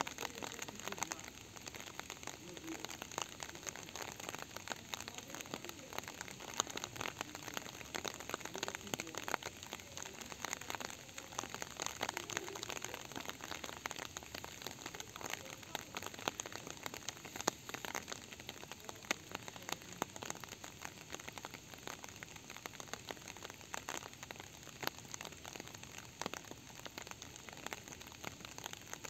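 Steady rain falling, with many individual drops ticking irregularly throughout.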